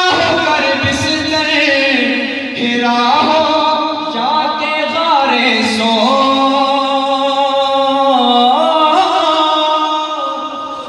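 A man singing a naat (Urdu devotional poem) solo with no instruments, holding long notes that slide up and down between pitches.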